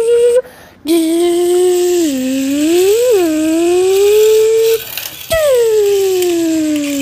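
A voice making a long, gliding 'vroom' engine noise for a toy car, its pitch sliding up and down and breaking off twice, over a light rattle.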